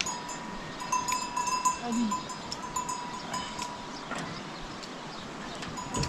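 Livestock bells ringing and clinking irregularly as the animals move, a steady ringing tone with scattered clanks.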